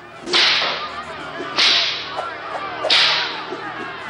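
Whip lashes in a stage performance's soundtrack: three sharp strokes about one and a third seconds apart, each fading over about half a second, over a low steady tone.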